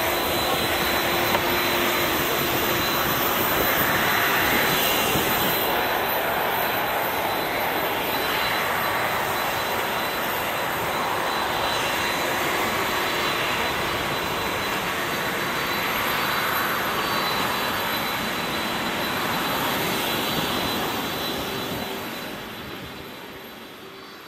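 Steady aircraft engine noise on an airport apron, with a thin high whine over it. It fades out near the end.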